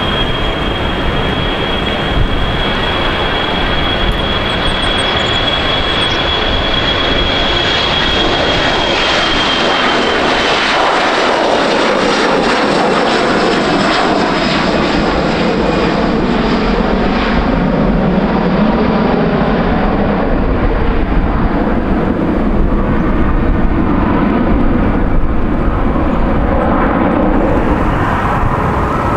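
Boeing 737 Classic's CFM56 turbofans at takeoff power. A steady high whine over a loud roar; the whine falls away about ten seconds in as the jet passes close and lifts off, leaving a broad rumbling roar as it climbs out. Near the end the sound cuts abruptly to another jet's engines on the runway.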